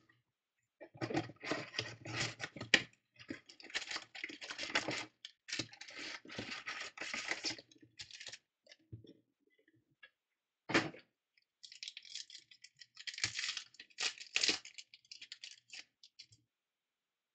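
A cardboard trading-card box being opened and its foil-wrapped card packs crinkling and rustling as they are pulled out and stacked by hand, in irregular bursts, with one sharp click about eleven seconds in.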